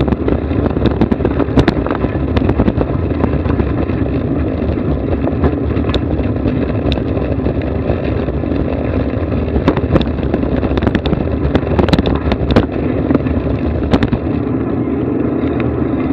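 Steady running noise of a vehicle on the move, with many sharp clicks and knocks scattered through it.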